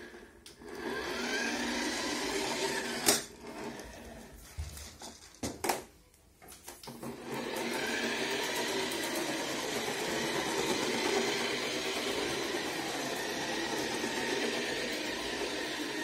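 Remote-control toy fire truck's small electric drive motor and gears whirring as it drives. The whir drops away with a couple of sharp clicks between about three and six seconds in, then comes back steady.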